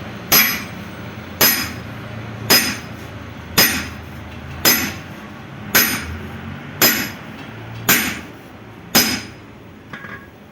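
Hammer blows on metal at a steady pace, about one a second, nine in all, each with a short metallic ring: a cylinder liner being driven into a four-cylinder engine block. The blows stop about a second before the end.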